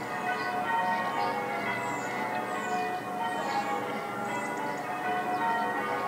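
Several church bells of different sizes ringing together in a continuous overlapping chime, many pitches sounding at once. There are faint short high chirps between about two and four seconds in.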